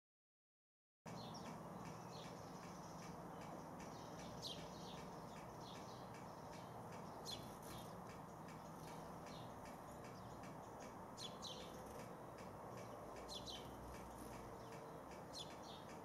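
Sparrows chirping in a steady run of short, sharp chirps, with a few louder ones, over a faint steady hiss of background noise. The sound starts about a second in.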